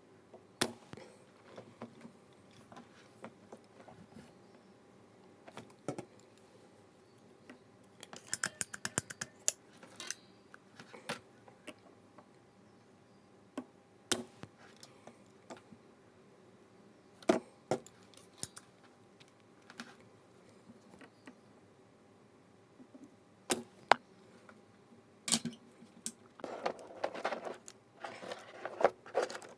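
Scattered sharp clicks and light clatter of small plastic keyboard parts being handled during work on Romer-G switches, with a quick run of clicks about eight seconds in and a longer rattling, scraping stretch near the end.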